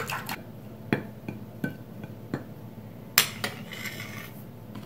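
Chopsticks beating eggs against a ceramic bowl, a fast clicking that stops just after the start. Then a few separate clinks and knocks of chopsticks and ceramic plates being set down and moved on a counter, the sharpest about three seconds in.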